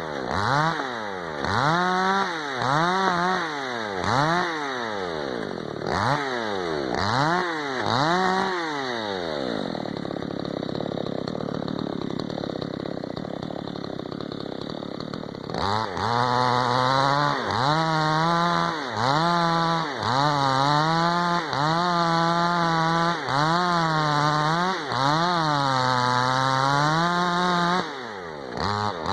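Tekna CS 58 54 cc two-stroke chainsaw engine being revved up and down again and again, each blip rising from idle and falling back. For several seconds in the middle it is held at high speed with a rougher, noisier sound, then the quick blips resume.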